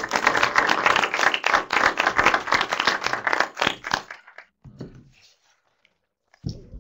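Audience applauding at the end of a talk, a dense patter of handclaps that dies away about four seconds in.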